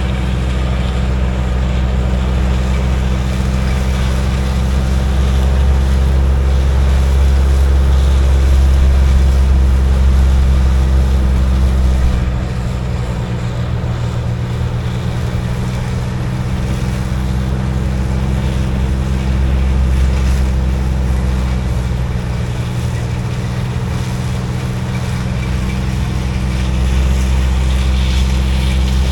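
Combine harvester running steadily while cutting soybeans, a constant engine drone with a deep low rumble that weakens about twelve seconds in and builds again near the end.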